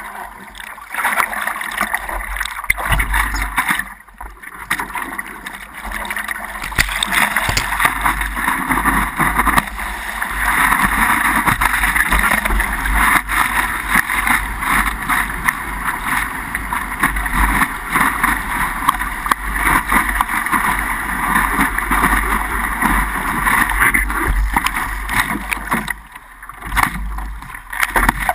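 Water rushing and splashing along a rescue paddleboard as it is hand-paddled and carried through breaking surf, with wind buffeting the microphone, all muffled through an action camera's waterproof housing at the board's nose. The rush eases briefly about four seconds in and again near the end.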